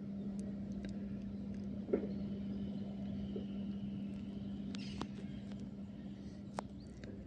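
A few short knocks of a large bone being struck against the enclosure floor by an Asiatic lion gnawing at it. The loudest comes about two seconds in, heard over a steady low hum.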